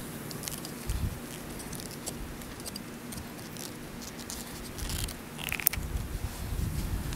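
Light clicks, ticks and short scrapes of white PVC pipe and fittings being handled and pushed together by hand. Wind rumbles on the microphone near the end.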